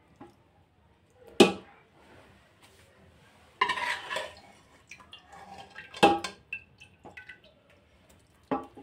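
Metal strainer and utensils knocking and scraping against a cooking pot as chicken pieces are lifted out of the stock: a few sharp knocks, the loudest about a second and a half in, and a short clattering scrape around four seconds in.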